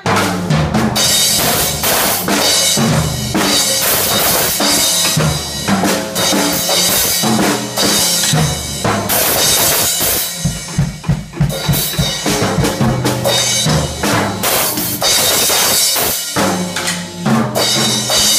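A drum kit played hard, with kick drum, snare and cymbals keeping a beat broken up by fills. Around the middle comes a fast run of even strokes.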